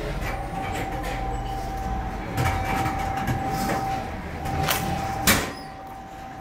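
Rice cake popping machine running with a steady high hum, then one sharp loud pop about five seconds in as it puffs a disc of rice into a cake and drops it out. A few light knocks come earlier.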